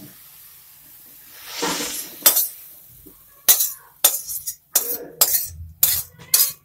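Cooked cabbage being scraped out of a steel kadai into a steel bowl: a cooking utensil knocks and scrapes against the metal, with a soft rustle early on and then a quick run of sharp clinks in the second half.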